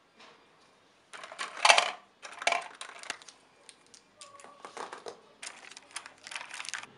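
Stationery being handled on a desk: a run of rustles and light clacks as highlighters and pens are picked up and moved about, loudest a little over a second in.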